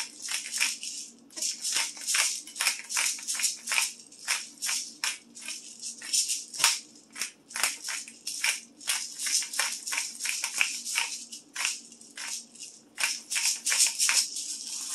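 Cracked black pepper being shaken out of a spice shaker, the grains rattling in quick, repeated shakes, several a second.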